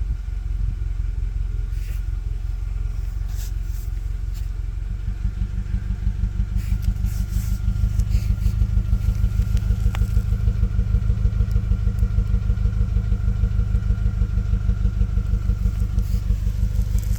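Toyota 2ZR-FAE 1.8 Valvematic inline-four petrol engine running, with a low rhythmic pulsing throb that grows stronger about five seconds in and a faint steady whine. This is the engine its owner says shakes, with an occasional misfire on cylinder 4.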